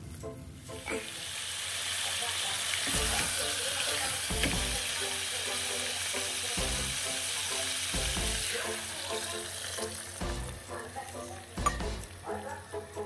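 Beef oxtail sizzling in a hot stockpot as boiling water is poured over it: a steady, loud hiss that sets in about a second in and dies down near the end, with soft background music.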